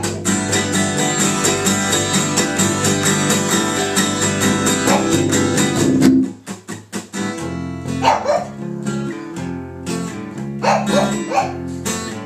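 Acoustic guitar strummed steadily, dropping to a few sharp choppy strokes about six seconds in before picking up again. A pug barks several times over the playing in the second half.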